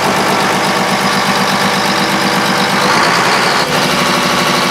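A riverboat's generator-set engine, just started from its control box, running steadily at idle with an even, fast pulsing beat.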